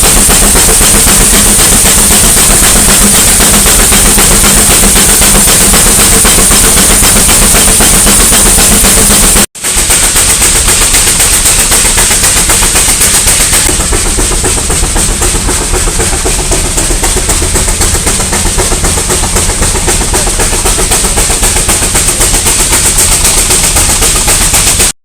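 Steam traction engine running hard, its exhaust beating out in a fast, even train with a constant hiss of steam over it. The sound breaks off for a moment about nine and a half seconds in, then picks up again.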